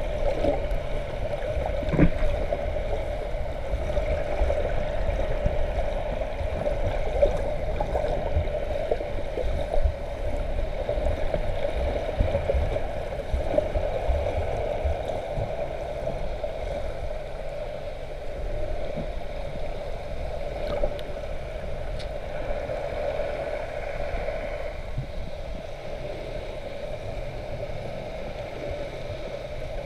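Muffled underwater sound through a camera's waterproof housing: churning water and bubbles from snorkelers' fin kicks over a steady hum, busier in the first half and easing off after about halfway.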